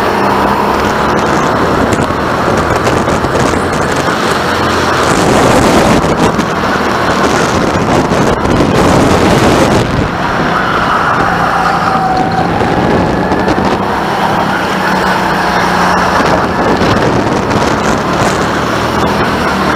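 Go-kart running at racing pace, heard from the driver's seat: its motor's pitch rises and falls as the driver accelerates and lifts through the corners, over a steady rushing noise that is loudest between about five and ten seconds in.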